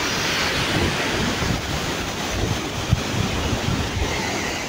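Mountain stream rushing over rocks, a steady rush of white water, with wind buffeting the microphone in irregular low gusts.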